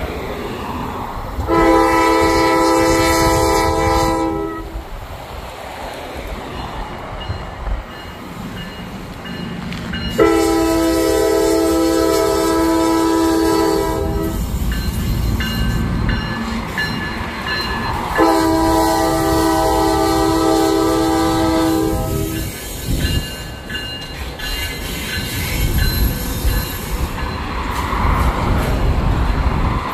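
Multi-note air horn of a CSX Tier 4 diesel locomotive leading an empty hopper train, sounding three long blasts about eight seconds apart as it nears a grade crossing. Under the horn runs the continuous rumble and rail clatter of the train passing close by.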